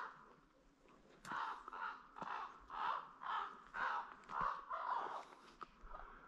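A run of about ten harsh, caw-like animal calls, roughly two a second, in conifer forest, after one short call at the start.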